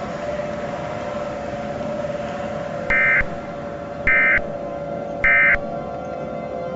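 Emergency Alert System end-of-message data tones: three short, identical screeching bursts about a second apart, signalling the close of the alert. Under them runs a steady two-tone drone.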